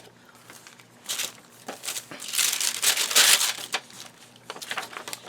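Paper rustling and sliding as the pages and tucked-in cards of a handmade junk journal are handled, with a louder stretch of rustling about two seconds in that lasts over a second, plus a few small paper clicks.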